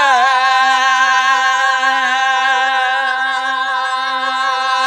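Solo singing voice, isolated with no instruments, holding one long sustained note that dips slightly at the start and then stays level with a light vibrato.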